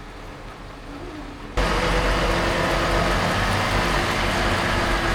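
A vehicle engine running steadily, cutting in abruptly about a second and a half in after a quieter low hum.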